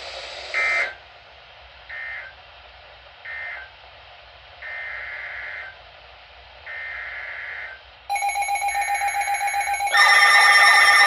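Warbling data bursts of the weather radio's emergency alert coding: three short ones that end the tornado warning message, then three longer ones that open the next alert, a flash flood warning. Near the end an electronic alert tone begins to pulse under the last burst, and then a much louder multi-tone alarm sounds.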